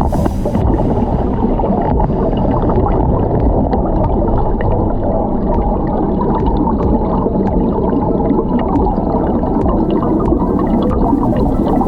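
Steady, muffled gurgling and churning of water, with scattered small clicks.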